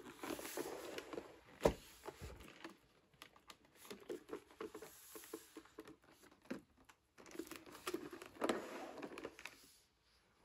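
Hands opening a Johnnie Walker advent calendar's cardboard box: card rustling, scraping and sliding as the outer cover is opened, with a sharp tap about two seconds in.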